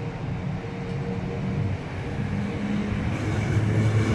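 Electric locomotive of a TLK passenger train pulling away from the station: a steady low electric hum and rumble that grows steadily louder as it accelerates toward the listener, with a higher whine joining about three seconds in.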